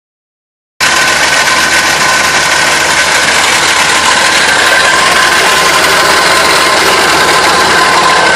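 2006 Dodge Ram 2500's engine idling, a loud, steady noise with a high whine running through it, starting about a second in. It is the idle sound the owner calls terrible.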